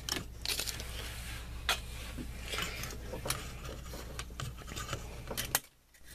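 Light handling of a stainless steel camp cook pot: a cardboard insert rustling and scraping, with scattered sharp clicks and taps of the pot's wire folding handle and lid. A low steady hum sits underneath, and the sound cuts out briefly near the end.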